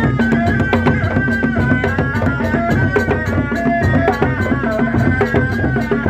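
Sundanese reak music: dogdog drums beating a dense, fast rhythm under a held, wavering melody on a reedy wind instrument, the tarompet.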